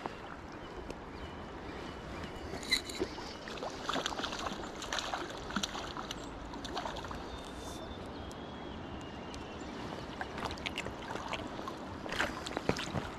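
River current rushing and sloshing right beside the microphone, with scattered small splashes and clicks.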